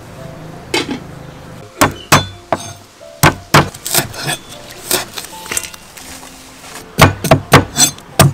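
Cleaver striking a thick round wooden chopping block as it chops leaves and ginger: sharp wooden knocks at an uneven pace, then a quick run of about five chops near the end.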